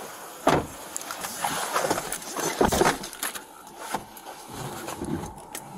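Handling noise from a police body-worn camera: rustling and knocking of the uniform and gear against the camera as the officer walks to the patrol car and gets in, with two heavier thumps. From about three seconds in the sound turns quieter and duller once he is inside the car.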